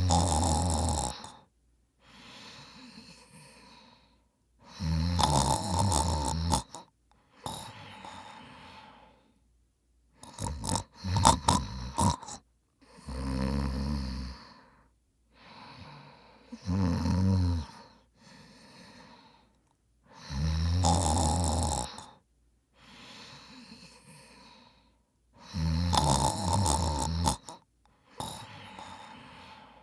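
A man snoring in his sleep: a loud snore about every four to five seconds, each followed by a quieter breath. About ten seconds in, a run of short irregular snorts breaks the rhythm.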